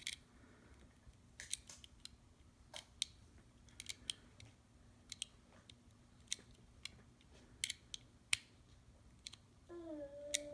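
Small, irregular clicks and ticks from a small screwdriver prying the rear wheels off a 1:64 diecast model car, levered against the car's base. Near the end a person hums briefly.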